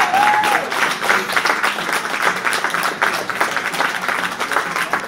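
Spectators applauding, a dense patter of clapping, with a brief shout at the very start.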